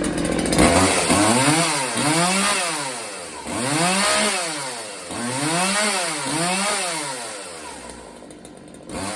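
Freshly repaired Homelite chainsaw running and being revved up and back down repeatedly, about eight times, dropping toward idle near the end.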